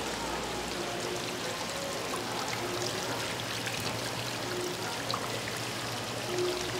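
Steady rush of running water and bubbling from the aeration in live-seafood tanks and baskets.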